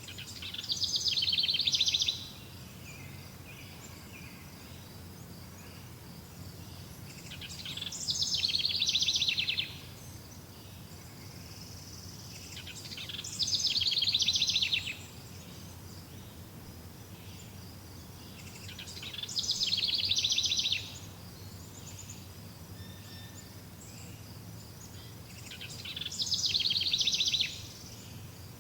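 A songbird repeating the same short, fast trilled song five times, each phrase about two seconds long, growing louder and then cutting off sharply, over a faint steady background.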